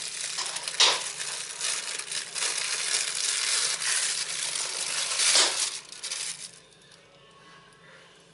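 Thin plastic bag crinkling and rustling under the hands as it is pulled to roll a stuffed grape leaf around its rice filling. Two louder swishes come about a second in and a little after five seconds. The rustling stops about six and a half seconds in.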